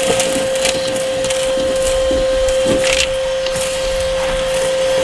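Shop vacuum running with a steady whine, over irregular crackling and scratching of dry debris, with a louder crackle about three seconds in.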